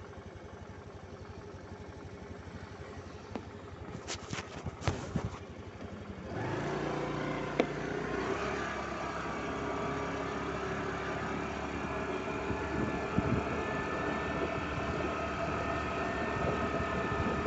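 Motor scooter engine running while being ridden, with road and wind noise. A few sharp clicks come about four to five seconds in. About six seconds in, the engine and ride noise grow louder and hold steady as the scooter picks up speed.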